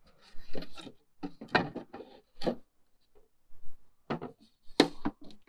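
Wooden back panel of a grandfather clock case being handled and fitted into place: a series of irregular wooden knocks and scrapes, the loudest near the end.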